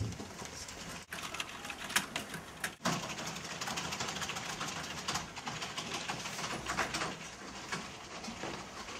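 Faint room noise with scattered light knocks and shuffles, breaking off briefly twice.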